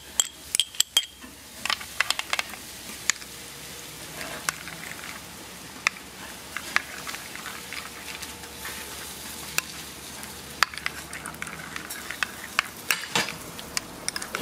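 A metal spoon stirring melted butter into chopped garlic, herbs and hot peppers in a ceramic bowl: wet scraping and stirring, with frequent sharp clinks of the spoon against the bowl.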